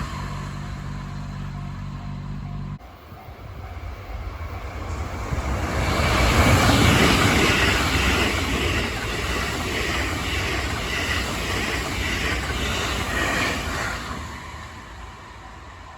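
A train passing over a level crossing: a rumble that builds from about four seconds in, is loudest a few seconds later, and fades near the end. Before it, a steady engine hum cuts off suddenly about three seconds in.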